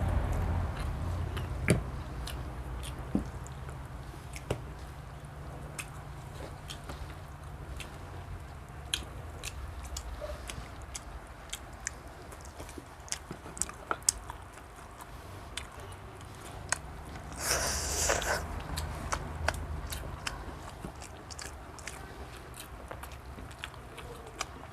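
A family eating a meal of rice, grilled chicken and fish: chewing and biting sounds with many scattered sharp clicks and taps. A low steady hum runs underneath, and a short hissing burst comes about three-quarters of the way through.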